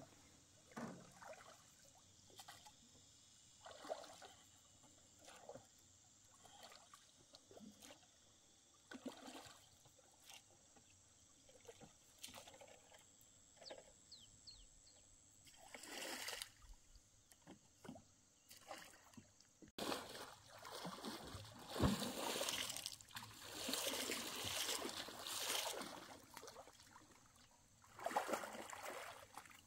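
Water splashing and trickling in short, irregular bursts, which become louder and denser after a cut about twenty seconds in.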